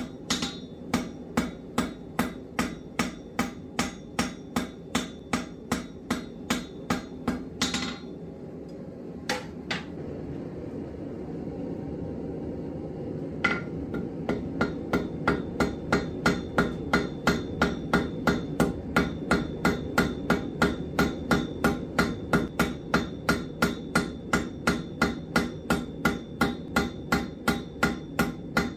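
Blacksmith's hammer striking hot 1/4-inch round steel stock on an anvil in a steady rhythm, about three ringing blows a second. About a third of the way in the hammering stops for a few seconds, with a couple of single blows, then resumes at the same pace.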